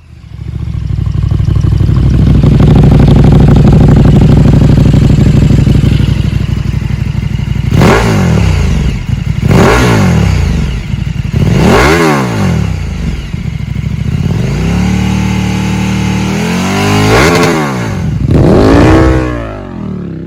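KTM 1290 Super Duke R's V-twin engine through a Yoshimura AT2 slip-on exhaust, starting up and running steadily. It is then blipped hard on the throttle about five times in the second half, each rev rising and dropping quickly back to idle.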